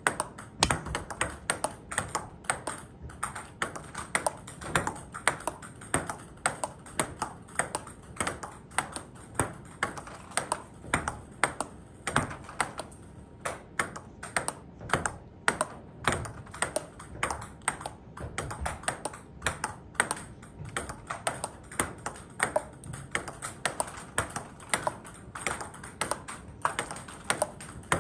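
Table tennis backhand rally: the celluloid-type ball clicks off rubber-faced paddles and bounces on the table in a quick, steady rhythm of sharp ticks.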